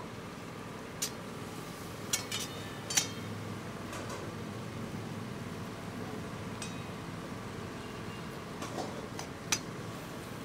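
Long metal spatula stirring food in a black iron karahi, clinking sharply against the pan about half a dozen times, most in the first three seconds and twice near the end, over a steady background noise.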